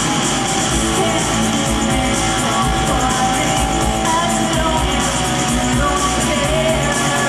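Rock band playing live, loud and steady: electric guitars, bass and drums, with a woman singing at times.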